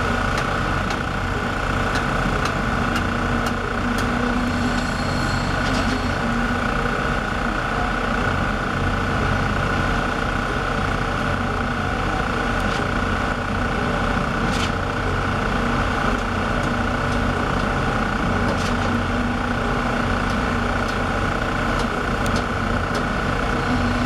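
Concrete-pour machinery running steadily: a continuous engine drone with a steady high whine over it, and a few faint knocks.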